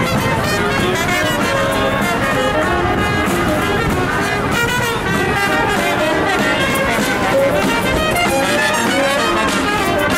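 A brass band playing a tune, with trumpets and trombones carrying the melody.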